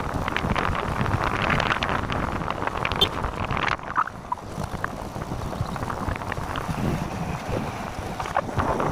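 Wind buffeting the microphone over the rumble of a moving vehicle, with scattered knocks and a brief dip in level about four seconds in.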